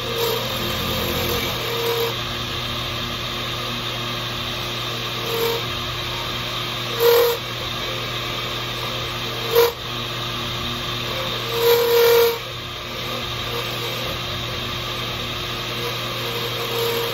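Lathe motor running steadily while a tool cuts into a deer antler pen blank in several short, louder passes, the longest about twelve seconds in.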